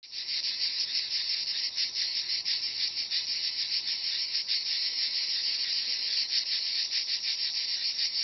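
A dense chorus of cicadas singing: a steady, high-pitched, rapidly pulsing buzz.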